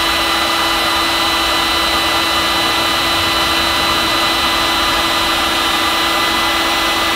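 Electric heat gun running steadily on its full setting: its fan blowing with a constant hum tone and a few higher whining tones.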